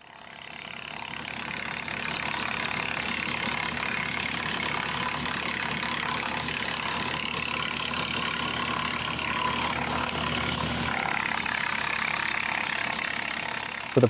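Woodland Mills TF46 PRO PTO-driven wood chipper running off a tractor and chipping branches: a steady engine hum under the rush of chips and air blowing out of the discharge chute. It fades in over the first couple of seconds.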